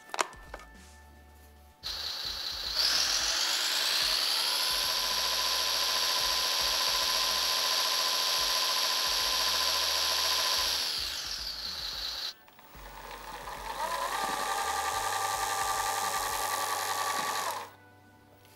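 A click, then a small electric motor in a 1/14 Tamiya Knight Hauler RC truck's chassis whirring: it winds up to a steady high whine, runs about nine seconds, then winds down and stops. It starts again at a lower pitch, runs about five seconds and cuts off.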